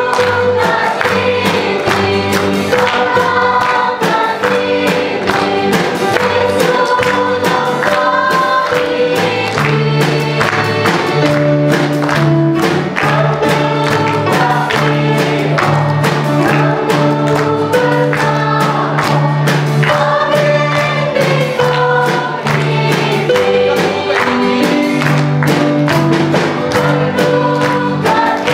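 Children's choir singing together in unison over instrumental backing with a steady beat and a bass line.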